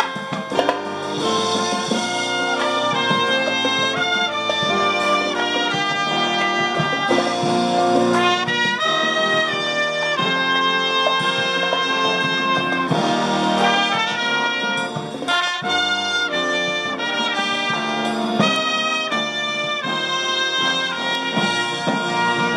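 Marching brass band playing a lively tune live, with saxophones, trumpets, trombones and sousaphones carrying changing melody lines at a steady level.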